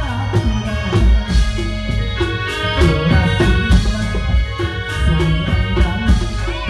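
Loud music with heavy drum strokes under held melodic notes, the accompaniment to a reog buta costume dance.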